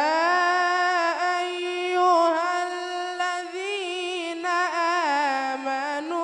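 A young male reciter chanting the Quran in melodic tajweed style into a microphone. He holds one long, unbroken melismatic phrase whose pitch wavers through ornamental turns.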